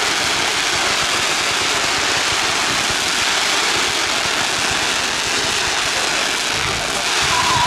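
Firework fountains and comet batteries firing from the ground, a dense continuous rushing hiss with rapid crackle. Near the end a whistling firework starts, its tone falling slightly.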